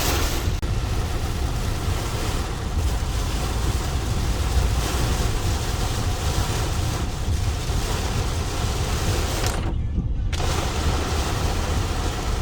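Heavy wind-driven rain lashing a moving car, over a steady low rumble of the car on the road. The rain noise drops out briefly about ten seconds in.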